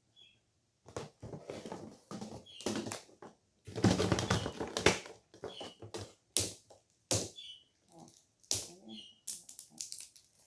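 Hands handling and unwrapping plastic Paka Paka blind capsules: irregular rustling, crinkling and sharp plastic clicks.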